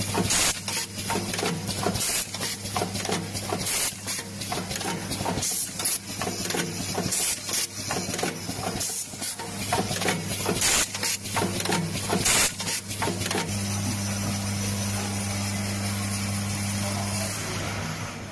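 Industrial sewing machine running: a steady motor hum under a rapid, irregular clatter of needle-stroke clicks, settling into a smoother continuous run about three-quarters of the way through before clicking again near the end.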